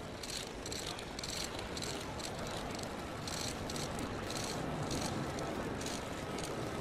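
Outdoor ambience of a gathered crowd, a steady hubbub, with many quick, sharp clicks coming irregularly several times a second.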